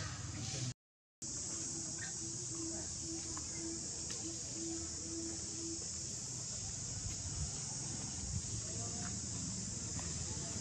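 A steady, high-pitched chorus of insects buzzing. The sound cuts out completely for about half a second, just under a second in.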